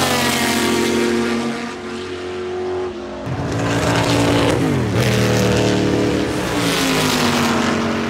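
Racing cars passing close by at speed one after another, each engine note falling in pitch as the car goes past. The loudest pass comes about halfway through.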